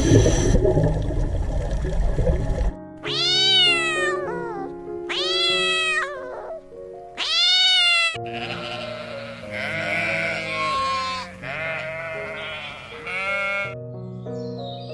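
Drawn-out animal calls over steady background music: a low rumbling noise for the first couple of seconds, then three long calls that rise and fall in pitch, followed by several quavering calls.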